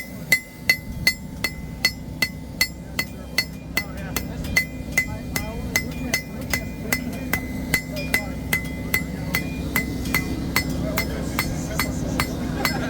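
Hand hammer striking a hot steel knife blade on an anvil at a steady pace, about three blows a second, each with a short bright ring, as the blade is smoothed and flattened. A steady low hum runs underneath, and the blows fade out near the end.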